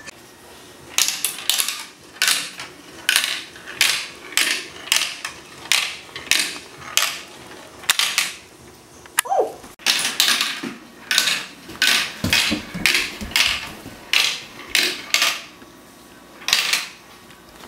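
Hard plastic marble-run pieces clacking against each other as the toy is handled and put together: a sharp click about every half second to second.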